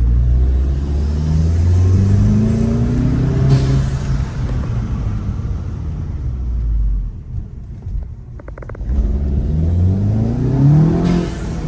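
Volkswagen GTI's turbocharged engine, fitted with an ECS Luft-Technik intake without heat shield and a big-bore turbo inlet pipe, accelerating: the revs climb, fall back at gear changes and climb again. The sound eases about eight seconds in, with a short quick rattle of clicks, then picks up again.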